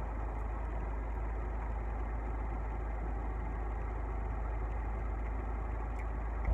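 Steady low hum under an even background hiss, without any distinct events.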